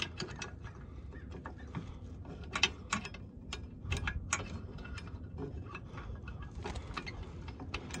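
Irregular light metallic clicks and taps as a thin steel rod from a spring-pin kit is worked by hand through a slot in a rusty Boss Smarthitch 2 plow mount bracket.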